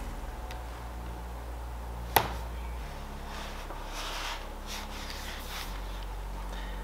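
A Dell Latitude 5500 laptop's lid snaps shut with one sharp click about two seconds in. Soft rubbing and handling noises follow as the closed laptop is turned over onto a wooden tabletop.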